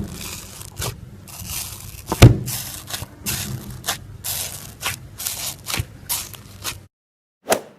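Slime being squeezed and pulled by hand: a run of crackly, crunching strokes, with one loud squish about two seconds in. They stop abruptly near the end, and one more short sound follows.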